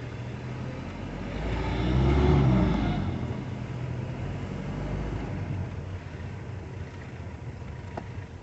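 Motorhome engine and road noise while driving, with another vehicle passing close by about two seconds in, swelling loud and fading away.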